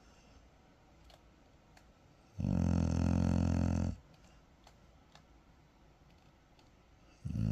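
Dog snoring: one loud snore lasting about a second and a half, a few seconds of quiet, then the next snore starting near the end.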